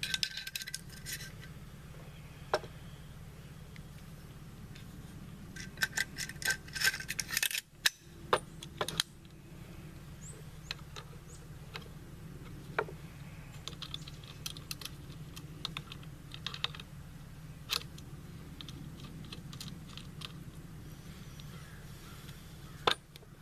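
Small metal rifle parts clicking and rattling in several quick bursts with single clicks between, as a bolt carrier group is handled and fitted into an AR-style upper receiver, over a low steady hum.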